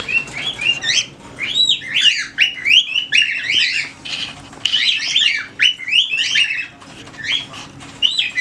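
Several pet birds chirping and whistling in rapid, overlapping calls, with a few short lulls: agitated, excited calling that the owner puts down to the birds sensing an approaching hurricane.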